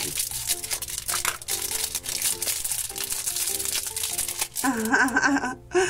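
Thin clear plastic wrapper crinkling as it is snipped with scissors and peeled off a small plastic toy figure, with light background music underneath.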